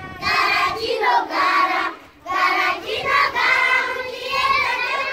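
A large group of schoolchildren singing the school anthem together, in sung phrases with a short breath break about two seconds in and a long held line near the end.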